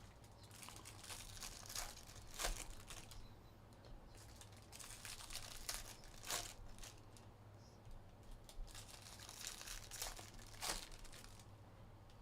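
Foil wrappers of Bowman Jumbo trading card packs crinkling and tearing as packs are ripped open, in irregular bursts with a few sharper crackles.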